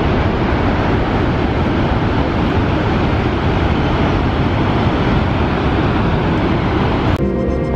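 Steady, loud rush of the Horseshoe Falls at Niagara, falling water heard close to the brink. Background music cuts in abruptly near the end.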